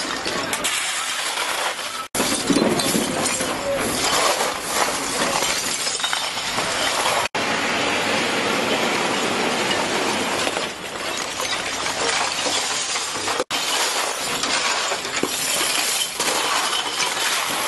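Masses of spilled glass beer bottles clinking, crunching and breaking as shovels, brooms and a front loader's bucket scrape them off the pavement. The sound breaks off abruptly a few times at scene cuts.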